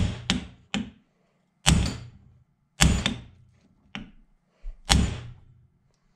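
Hammer striking a steel socket used as a drift to knock a bearing race out of a motorized-bike clutch basket held in a vise: about eight sharp metal-on-metal blows at uneven spacing, each with a short ring. The race is stiff and takes some force to drive out.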